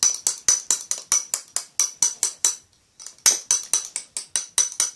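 Spoon clinking and scraping against a glass bowl in quick, even strokes, about five a second, while stirring shaving foam into slime, with a short break about three seconds in.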